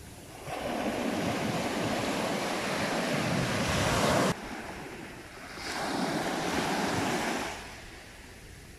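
Ocean surf: two surges of waves breaking and washing in, the first cutting off suddenly about four seconds in, the second swelling and fading a little later.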